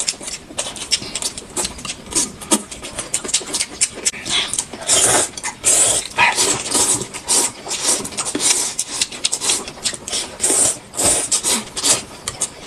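A person eating fast and noisily: rapid wet chewing and lip-smacking clicks, with hissing sucking sounds in places.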